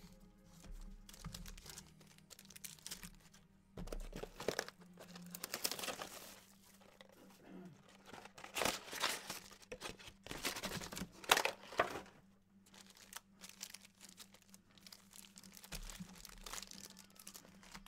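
Trading card pack wrappers being torn open and crinkled, in irregular rustling bursts with a few sharp snaps over a low steady hum.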